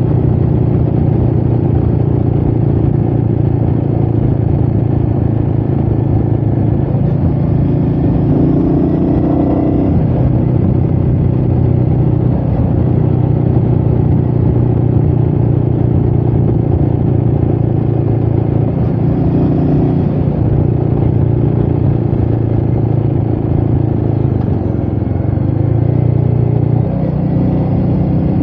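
Royal Enfield Meteor 350's single-cylinder engine running steadily while riding, its pitch shifting several times with throttle, with wind noise over it.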